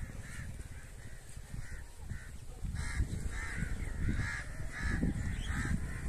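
Birds calling from the trees in many short, repeated calls, sparse at first and coming thick and fast from about halfway in, over a low rumble.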